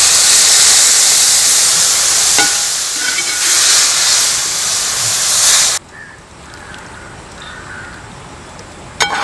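Water sizzling and hissing loudly as it hits a hot metal pot of quail frying in masala, while the pot is stirred with a metal ladle. The hiss cuts off abruptly about six seconds in and leaves a much quieter background, and the ladle clinks sharply against the pot near the end.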